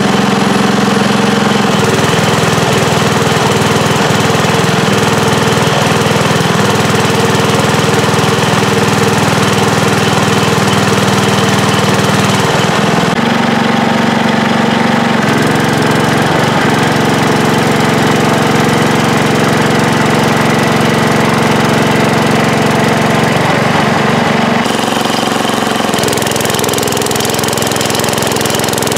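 Small gasoline engine running steadily under heavy load, driving an old Delco Remy alternator used as a light-duty welding generator. Its tone shifts a few times, about halfway through and again near the end, as the load changes.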